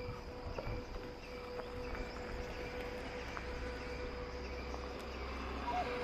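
Quiet woodland ambience: a faint, steady insect drone holding one pitch, with a few soft clicks.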